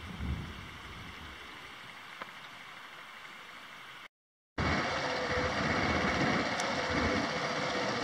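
Indian spot-billed ducks taking off from shallow water: a splash and a few wing flaps at the start, then a steady soft outdoor hiss. After a brief dropout about four seconds in, a louder steady rumble with a faint hum takes over.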